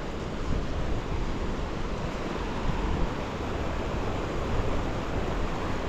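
Steady rushing noise of wind buffeting the microphone over running glacial meltwater, with no distinct events.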